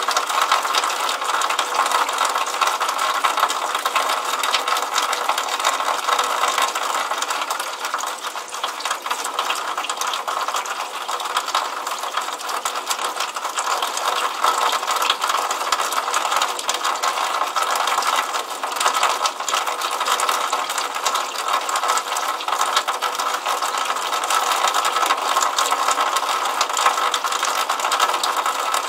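Water running from a drainpipe outlet and splashing onto wet pavement: a steady, dense patter of rapid drips and splashes.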